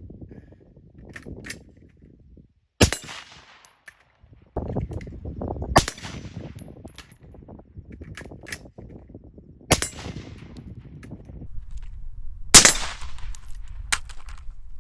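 Four suppressed rifle shots from an integrally suppressed Gemtech Integra, a few seconds apart, each followed by a short ringing tail. Fainter clicks come between the shots.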